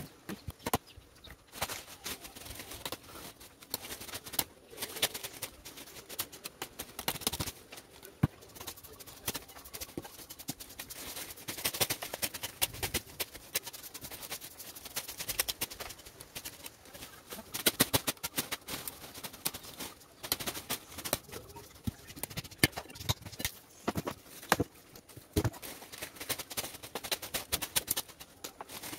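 Cut leafy tree branches rustling and crackling as they are handled and dragged, with many sharp knocks and cracks from chopping that come in clusters.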